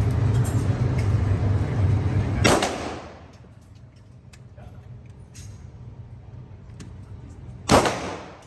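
A steady loud rumble with a low hum that stops about two and a half seconds in with a sharp crack, then a single loud gunshot near the end with a short echoing tail.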